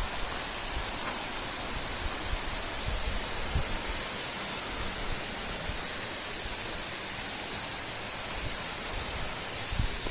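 Steady rush of flowing mountain water, with occasional faint low rumbles.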